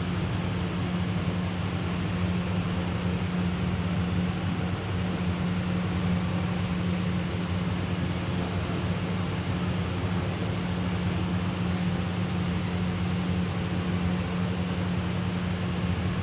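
Steady low electric hum with an even rushing hiss, like a running motor, unchanging throughout.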